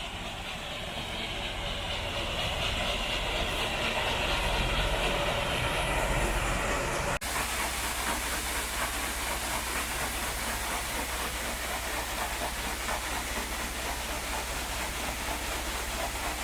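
Combine running steadily while harvesting soybeans: a steady mechanical rush with a low hum underneath. It builds slightly over the first few seconds, and the sound changes abruptly about seven seconds in.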